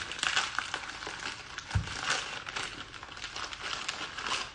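Crunchy cookie being bitten and chewed close to the microphone: a dense run of crisp crackles, with one dull thump about two seconds in.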